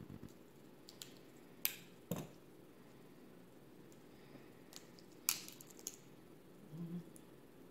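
Crab leg shells being snipped with kitchen scissors and cracked and pulled apart by hand: a few sharp cracks and clicks, spaced irregularly, with the two loudest about 2 s and 5 s in.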